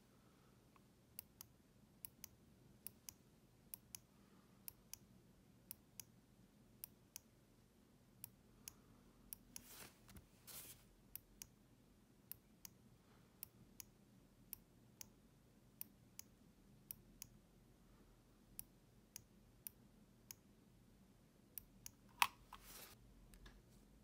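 Zippy DF3-P1 mouse microswitch pressed and released repeatedly by a fingertip. Each actuation gives a sharp click, then a second click a fraction of a second later on release, a little faster than once a second. Near the end there is one louder click and a brief rustle.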